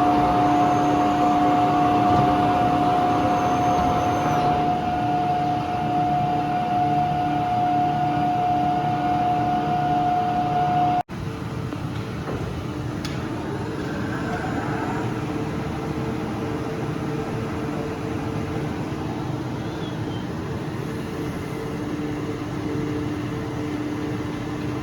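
Droop & Rein CNC bed milling machine running with a steady machine whine. The sound breaks off abruptly about eleven seconds in and goes on as a lower, steady hum.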